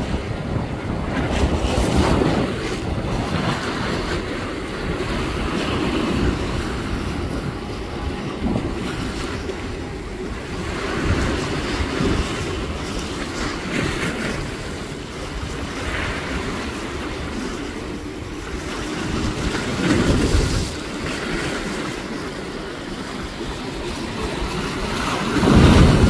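Wind buffeting the microphone over choppy sea water washing and splashing, in slow surges, with a louder surge of splashing spray near the end.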